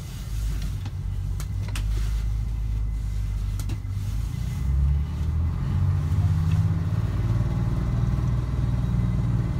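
1941 Yellow Coach PDG4101 bus's Detroit Diesel engine running as the bus moves off at low speed, heard from inside the coach. The engine's low rumble grows louder and rises in pitch about five seconds in as it pulls harder, with a few light clicks in the first four seconds.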